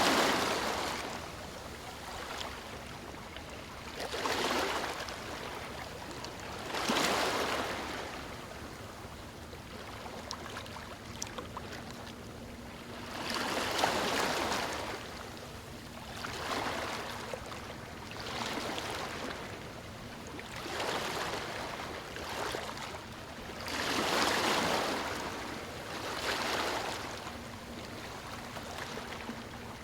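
Small waves breaking onto a stony shore, each one a rushing surge that swells and falls away, coming every two to three seconds.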